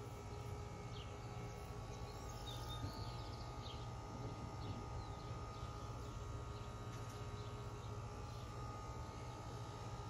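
Quiet outdoor ambience: faint, scattered bird chirps over a steady low rumble.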